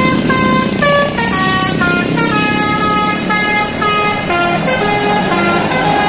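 Tour bus 'telolet' horn, a multi-tone air horn playing a quick tune of changing notes, over the bus engine's steady hum.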